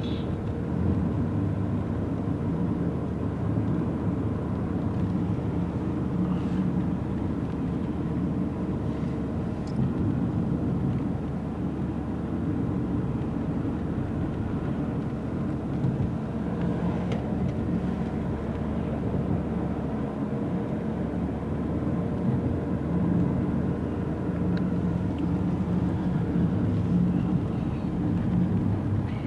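Steady road and engine rumble of a moving car, heard from inside the cabin, with a few faint clicks.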